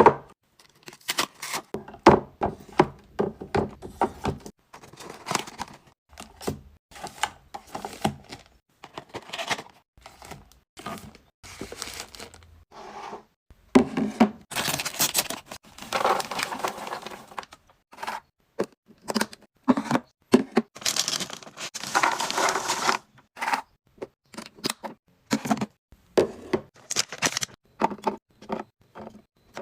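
Groceries being unpacked and restocked into a fridge: plastic packaging crinkling and rustling, with irregular clacks, taps and light thuds of containers being handled and set down. There are longer crinkling stretches about halfway through and again a little later.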